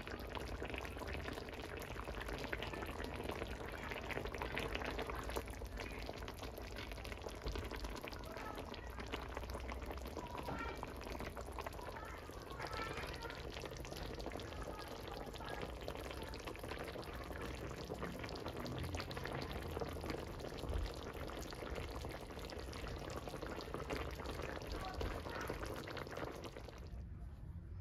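Tamarind broth with milkfish and mustard greens simmering in a wok: a steady bubbling with many small pops. It cuts off abruptly near the end.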